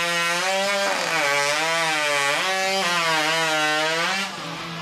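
Custom-built hot saw with a racing engine running at full throttle through a log, its engine note wavering up and down in pitch as it cuts. The sound drops away about four seconds in.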